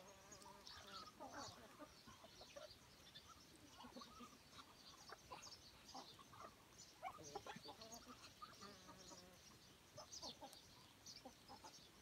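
Faint clucking of chickens in a mixed flock feeding with Muscovy ducks, scattered short calls throughout, with frequent high chirping.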